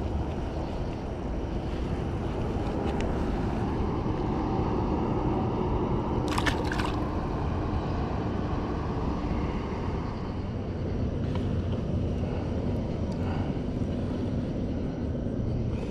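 Steady low rumble of distant engine noise, with a short cluster of sharp clicks about six and a half seconds in.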